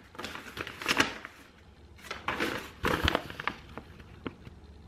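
A sheet of paper rustling and crinkling as it is unfolded and handled, in two spells of crackly rustling.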